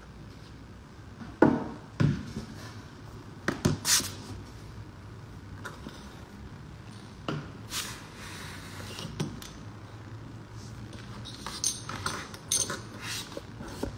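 Scattered short knocks and clicks, some in quick pairs, over a low steady room hum: a phone being handled and moved while it records.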